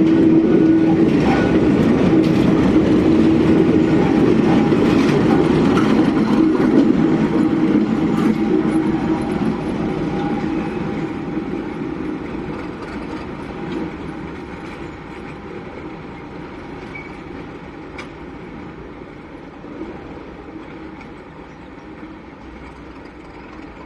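Test train hauled by a Class 37 diesel locomotive passing and pulling away: a loud rumble of the engine and wheel clatter for the first several seconds, then fading steadily from about eight seconds in as it recedes.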